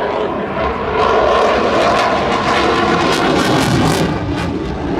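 Eurofighter Typhoon's twin EJ200 jet engines passing at high power, very loud. The jet noise swells about a second in and stays loud, with a crackling edge in the later seconds.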